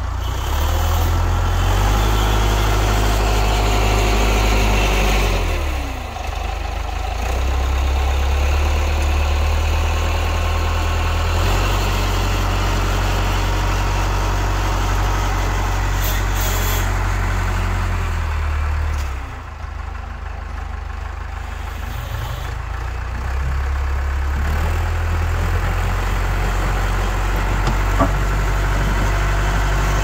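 Massey Ferguson 50E backhoe's Perkins diesel engine running, its note stepping up and down several times. The revs sag and come back up about six seconds in and again around twenty seconds in. A single sharp click near the end.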